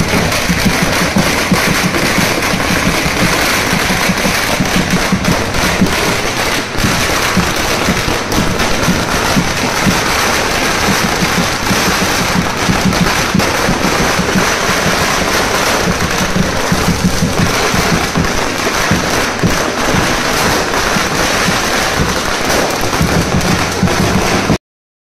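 Firecrackers going off on the ground in a rapid, unbroken crackle of bangs. It breaks off suddenly near the end.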